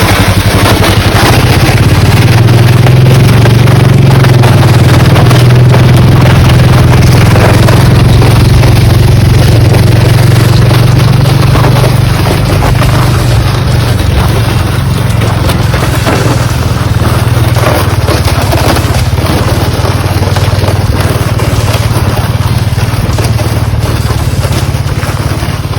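A vehicle engine running steadily and loudly close by, easing off a little about halfway through.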